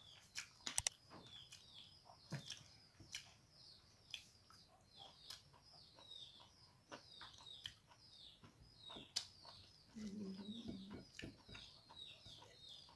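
Small birds chirping over and over in the background, short falling chirps several a second, with sharp clicks and smacks from eating rice by hand off a plate. A brief low sound comes about ten seconds in.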